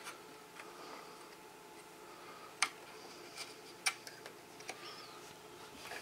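Scattered light clicks and taps of a hand handling the plastic tubing and fittings inside an opened De'Longhi coffee machine, the two sharpest about two and a half and four seconds in.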